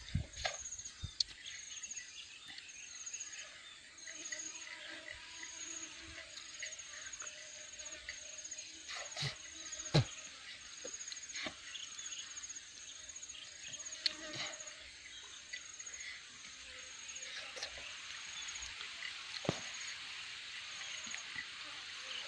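Insects trilling outdoors: a high, pulsing chirp repeating in short bursts, over a soft hiss. Scattered sharp clicks and smacks from eating and handling a coconut-shell bowl break in, the loudest about ten seconds in.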